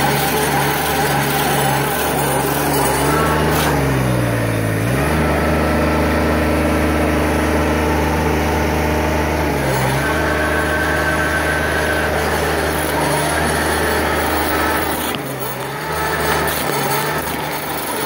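Ditch Witch SK752 mini skid steer's engine running under load, driving an Erskine stump grinder's cutter wheel through a live oak stump. The engine pitch sags and recovers about four seconds in and again briefly around ten seconds in as the wheel bites into the wood.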